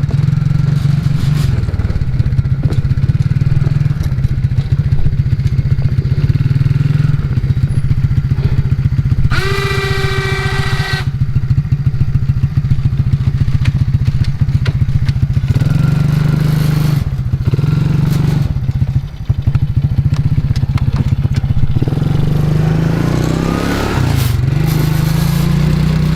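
ATV engine running as it is driven, its note shifting with the throttle in the second half. About ten seconds in, a steady high tone with overtones sounds for about a second and a half.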